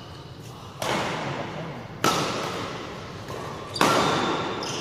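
Badminton rackets striking the shuttlecock three times in a rally, sharp cracks about a second and a half apart, each echoing in a large sports hall.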